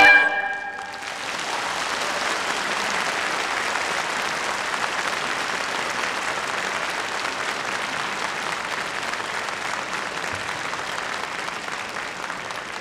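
The last notes of a Chinese traditional instrument ensemble ring out for about a second. An audience then applauds steadily, and the applause begins to fade near the end.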